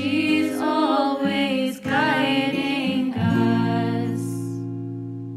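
Hymn sung with instrumental accompaniment. About three seconds in, the music settles on a long held final chord that slowly fades away.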